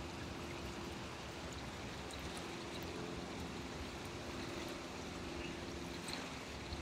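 A steady rush of wind and rippling lake water at the shore, with a faint steady low hum underneath and a few light ticks.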